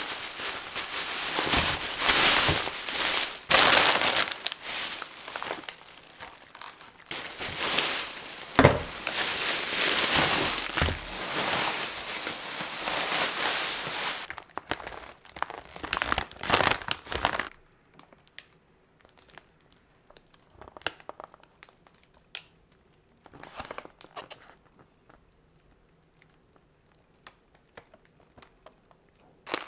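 Plastic grocery bags and food packaging crinkling and rustling as groceries are unpacked, loud and nearly continuous for about the first seventeen seconds. After that only faint, scattered rustles and light clicks of wrapped packages being handled.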